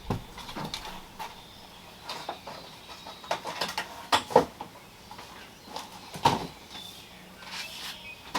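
A few scattered, irregular knocks and clunks of someone moving about and picking up a handsaw, the sharpest one about six seconds in. No sawing.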